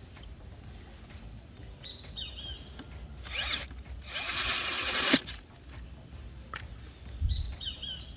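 A ratchet wrench tightening a bolt on a bicycle hanger: a short burst of ratcheting, then a longer, louder one that stops abruptly about five seconds in. Birds chirp faintly in the background.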